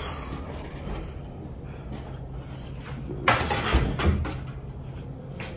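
Semi truck's engine running with a low, steady hum, heard from inside the cab, with two loud clunks about three and four seconds in.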